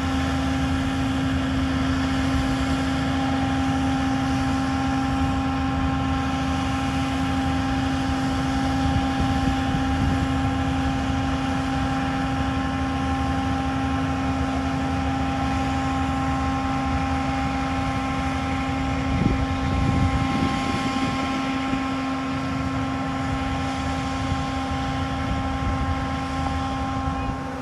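A large farm machine's engine running steadily at a constant speed, with a steady whine on top. There is a brief louder clatter about two-thirds of the way through.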